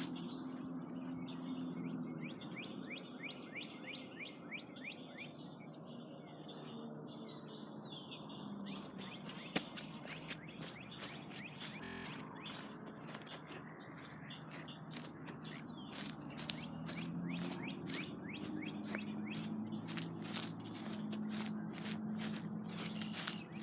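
Small birds chirping in quick repeated calls, over a low steady hum, with sharp clicks scattered throughout.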